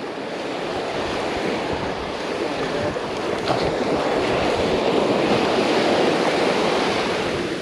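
Ocean surf washing up the beach: a steady rush that swells over several seconds and eases slightly near the end.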